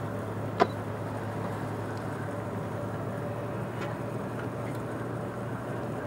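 Boat engine running with a steady low hum over a background hiss. One sharp click comes about half a second in.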